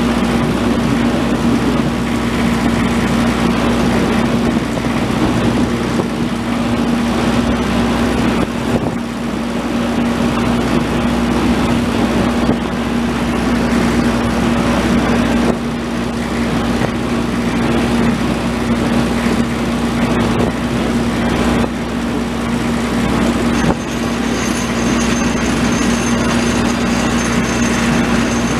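Engine of a small works locomotive running at a steady pitch as it moves a train of wagons loaded with rails along a light railway, with the rolling noise of the wagons on the track.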